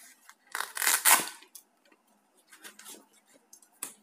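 Fishing pliers drawn out of a black fabric belt pouch and the pouch set down: a loud ripping rustle about a second in, then lighter rustling and a sharp click near the end.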